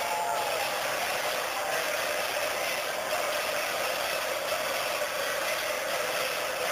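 Steady din of a large, dense crowd in a street procession: a constant wash of noise with no words standing out.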